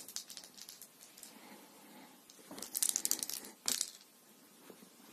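Rustling and crinkling of a fabric sofa cover as the hand and cat move on it, in a couple of crackly bursts a little past halfway.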